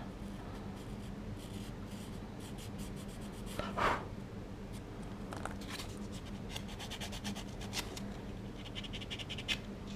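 Sanding pad rubbed over a primed resin model part in many short, quick strokes, smoothing away a mold line.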